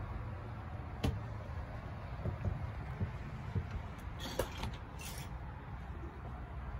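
Handling noise from a handheld camera being carried about, with soft knocks like footsteps on a floor, a sharp click about a second in and two brief rustles past the middle, over a low steady rumble.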